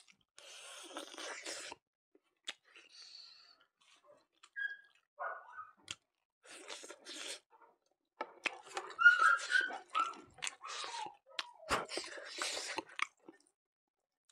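Close-up chewing and lip-smacking of someone eating rice and pork by hand, in irregular bursts with a few short squeaky mouth sounds. The bursts are loudest a little past the middle.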